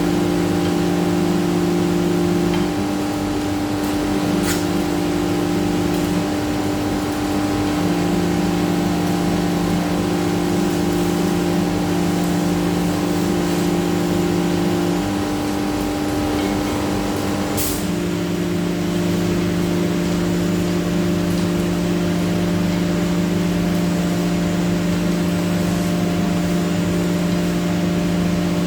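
CNC router working a GRC panel: the spindle gives a steady hum, and a lower tone cuts in and out every few seconds as the machine moves and cuts. There is a sharp click about 18 seconds in.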